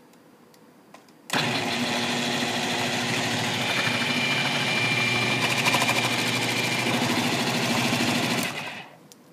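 KitchenAid food processor motor switched on with a sudden start and running steadily for about seven seconds while its slicing disc cuts a cucumber into thin lengthwise slices, then switched off and quickly winding down.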